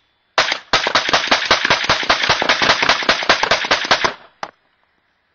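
Suppressed Rock River .308 rifle with a 16-inch barrel firing through an AAC 7.62 SD suppressor. One shot is followed by a rapid, evenly spaced string of about nine or ten shots a second lasting some three and a half seconds, then one last shot.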